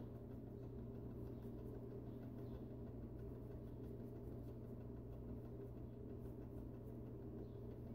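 Quiet room tone: a faint, steady low hum with no distinct events.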